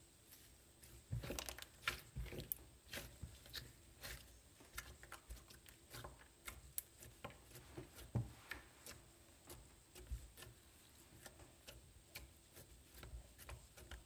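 Slime being stretched, squeezed and poked by hand, making irregular soft sticky clicks and crackles that start about a second in.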